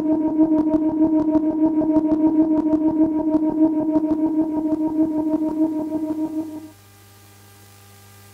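Yamaha DJX keyboard sounding a steady held synth note over a quick ticking beat, about four ticks a second. It cuts off suddenly near the end, leaving a low electrical mains hum.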